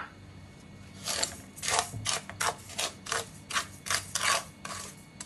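A spoon stirring dry granulated sugar in a nonstick frying pan, with gritty scraping strokes at about three a second starting about a second in. The sugar is being heated, not yet melted, to make caramel.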